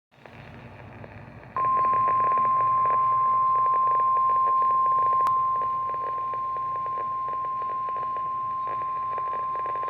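NOAA Weather Radio 1050 Hz warning alarm tone: one steady, loud beep starting about one and a half seconds in, over receiver static. It signals that a warning broadcast follows.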